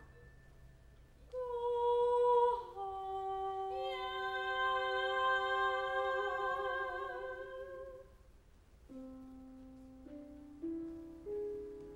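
Operatic female singing in a contemporary chamber opera: long held notes with vibrato, with a second line holding a note alongside a few seconds in. After a brief drop near the middle, quieter low sustained tones step upward toward the end.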